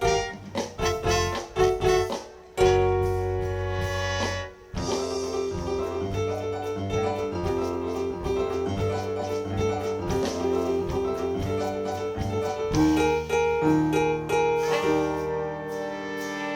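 Live band music led by a piano or keyboard. Short chords near the start, then a held chord that breaks off about four and a half seconds in, followed by a steady run of changing notes and chords.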